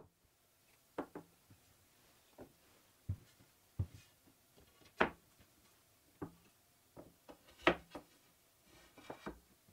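Small plywood blocks and long wooden rails being set down on a wooden workbench: scattered light wooden knocks and taps, about a dozen, the loudest about halfway through and again toward the end.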